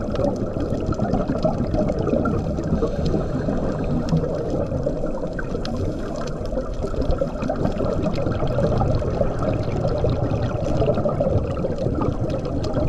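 Underwater bubbling and gurgling of scuba divers' exhaled air rising from their regulators, a steady dull rush of water noise.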